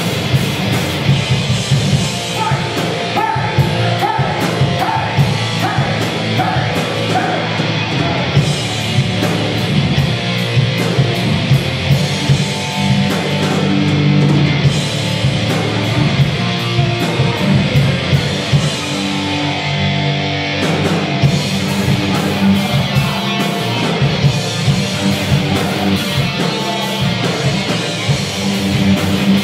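Heavy metal band playing live and loud: electric guitars, bass guitar and a drum kit.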